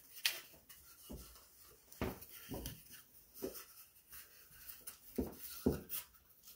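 A heavy coat being handled and put on: fabric rustling, with several short soft knocks and thumps, loudest just after the start and again near the end.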